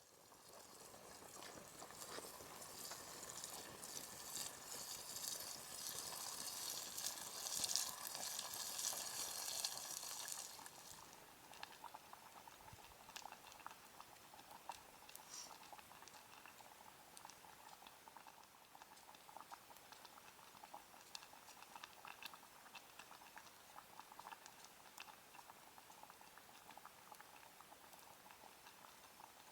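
Food sizzling and bubbling in a German M31 aluminium mess tin over a campfire, a steady crackling hiss with small pops. It is louder for about the first ten seconds, then drops to a quieter crackle with scattered pops.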